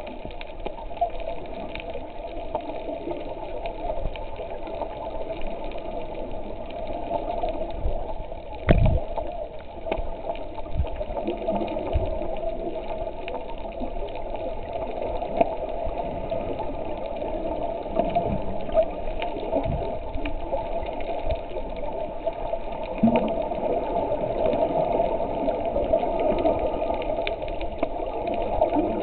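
Muffled underwater noise picked up by a submerged camera: a steady hum with scattered crackle and a few dull low thumps.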